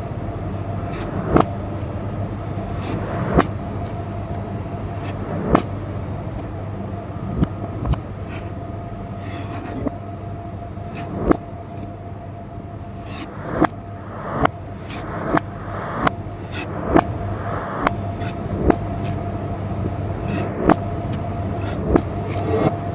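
Knife cutting vegetables on a cutting board: sharp separate strokes, about one every two seconds at first and coming faster after about halfway, over a steady low hum.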